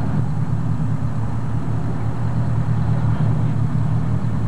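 Fishing boat's engine running with a steady low rumble.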